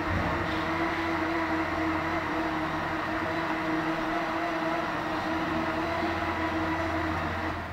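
A steady mechanical hum with a held low tone over a noisy rush, which drops away near the end.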